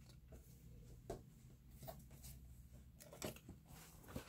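Near silence with a few faint rustles and taps as a paperback picture book is handled and turned around.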